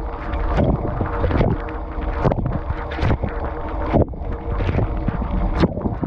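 Dishwasher wash cycle heard from inside the tub: water jets spraying and splashing over the dishes and the camera, surging about once a second, over a steady hum.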